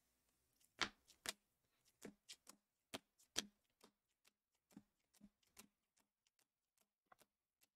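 Faint, irregular clicks and taps, about a dozen over several seconds, in near silence.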